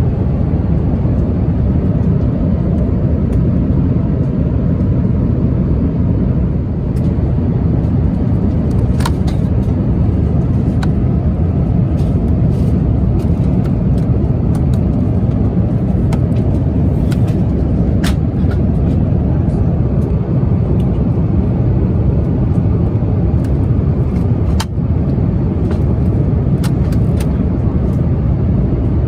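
Steady cabin noise inside an Airbus A350-900 in flight: a loud, even, low rush of airflow and Rolls-Royce Trent XWB engine noise, with a few faint clicks.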